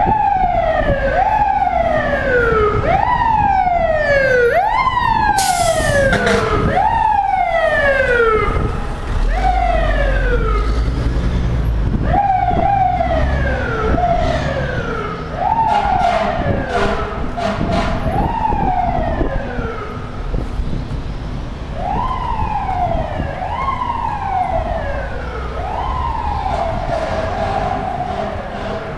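Fire engine siren sounding in short repeated whoops, each rising quickly and sliding down over about a second, with brief pauses between some runs of them, over a low street-traffic rumble. A short hiss cuts across about five and a half seconds in.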